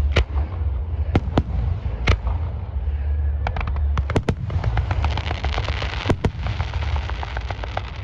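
Aerial fireworks bursting: several sharp bangs, then from about halfway a dense crackling of many small pops from crackle-effect shells, over a constant low rumble.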